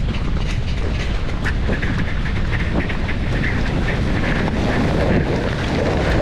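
Wind rumbling on the microphone, with Cape fur seals in the colony calling in many short bleats.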